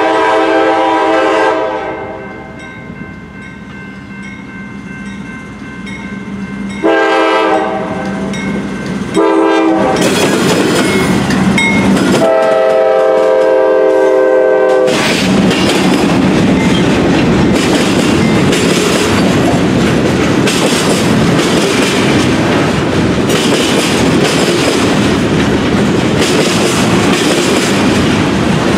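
Diesel freight locomotive's multi-note air horn blowing several blasts as the train approaches: the tail of one long blast, then long, short, long, the pattern for a grade crossing. Between the blasts is the rumble of the engine. From about halfway through comes the steady clatter and rumble of freight cars rolling past close by on the rails.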